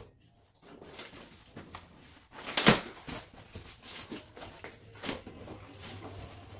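Cardboard shipping box being opened: a knife slitting the packing tape and the tape strip being peeled off the cardboard, with scattered rustles and crackles. A loud sharp click comes about two and a half seconds in and a smaller one about five seconds in.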